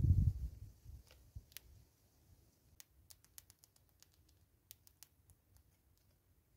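Smith's bush squirrel nibbling and cracking seeds: an irregular scatter of small, sharp clicks, thickest in the middle. A brief low rumble comes at the very start.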